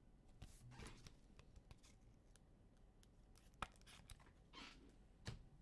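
Near silence with faint rustling and scattered light clicks as trading cards are handled and sorted, including one sharper click about three and a half seconds in.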